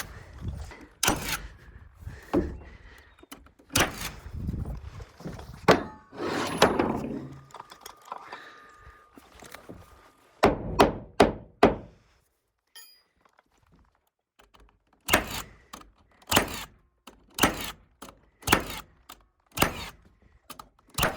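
Repeated heavy thunks of blows landing on wooden subfloor sheathing panels, irregular at first, then after a short pause a steady run of strikes about one a second.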